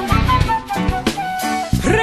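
Background music: a melodic instrumental passage, a lead line over a full bass.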